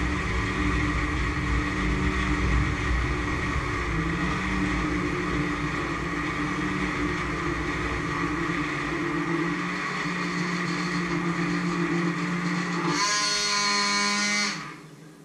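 Hand-held electric stick blender running in a large pot of liquid, a steady motor whirr with churning. Near the end its pitch changes to a brighter, higher whine for about a second and a half, then the motor cuts off suddenly.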